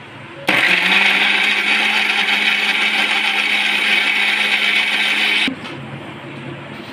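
Electric kitchen blender running for about five seconds, starting about half a second in and cutting off suddenly.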